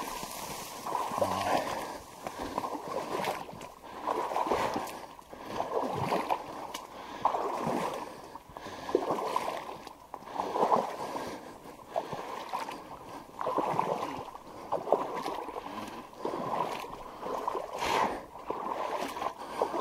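Rhythmic swishing and sloshing of someone walking through wet marsh reeds and shallow water, one surge about every second with each stride.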